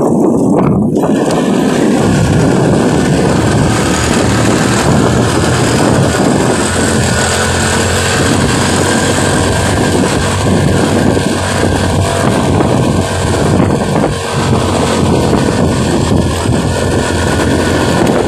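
Motorcycle engine running steadily while riding, under a loud, steady rushing noise.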